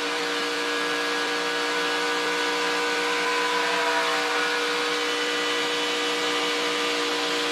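NASCAR Truck Series race truck's V8 engine held wide open at about 7,500 rpm, recorded on board: a steady, unbroken high engine note with no lift off the throttle.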